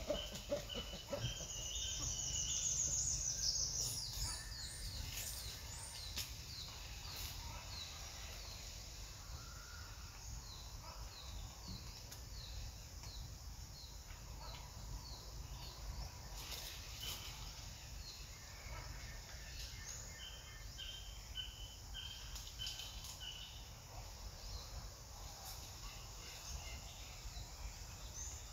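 Outdoor ambience of birds chirping in short, repeated high notes over a steady low rumble. A fast, high trill a few seconds in is the loudest call.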